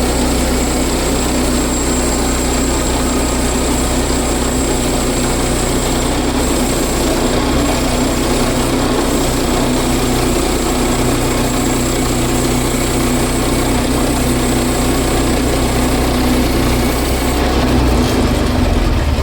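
Small gasoline engine of a portable bandsaw sawmill running steadily at working speed.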